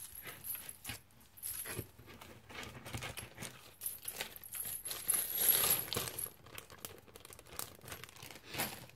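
Metal key rings and charms on resin keychains clinking and jingling as they are handled, in many small clicks, with a longer jingle in the middle and some rustling.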